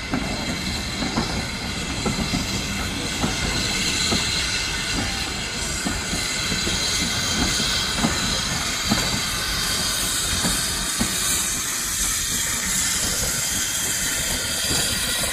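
Steam train: a steady hiss of escaping steam that grows stronger about a third of the way in, with irregular clanks and knocks from the train, fewer toward the end.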